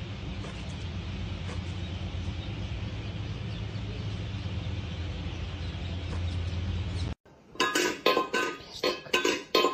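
A steady low hum under an even background noise, cut off suddenly about seven seconds in; then a regular run of sharp metallic clinks, about two a second, each ringing briefly.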